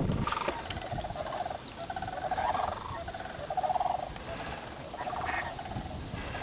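Ducks quacking, a string of short, rapid calls repeated about once a second as a flock takes flight.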